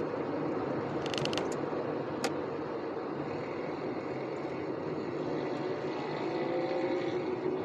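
Steady road and engine noise heard from inside a moving car's cabin, with a few light clicks about a second in and the engine note climbing near the end.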